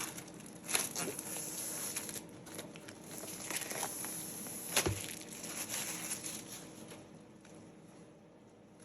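Cardboard and paper packaging of an Apple Magic Keyboard box rustling and rubbing as it is opened by hand, with two sharp taps, about a second in and near the five-second mark. The handling fades toward the end.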